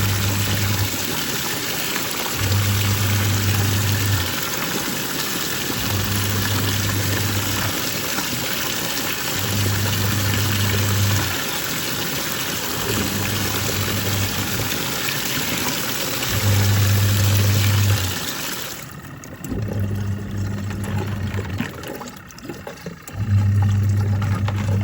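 Twin-tub washing machine running its wash cycle: the motor hums in pulses of under two seconds, switching on and off about every three and a half seconds as the agitator reverses. Steady water rushing and churning runs under it and cuts off about 19 seconds in.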